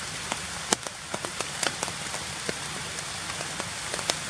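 Light rain pattering on forest leaves: a steady hiss with scattered sharp drip ticks at irregular intervals.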